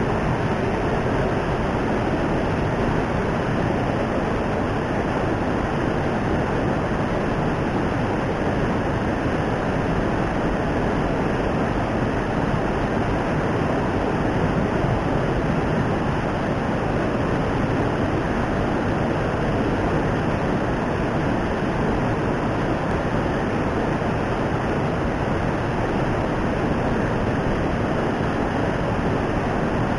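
Steady rush of fast-flowing water.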